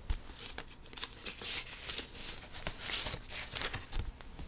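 Card picture sleeve of a 7-inch EP rustling and crinkling as it is handled and turned over in the hands, with a few small clicks.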